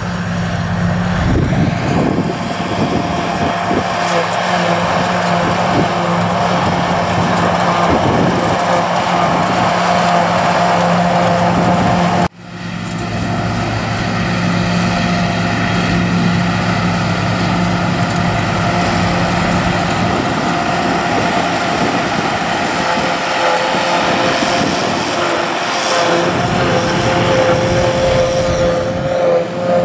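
Massey Ferguson tractors running under load with a JF FCT 850 trailed forage harvester chopping grass and blowing it into a silage trailer: a steady engine drone with a steady whine above it. The sound breaks off abruptly about twelve seconds in and picks up again at once.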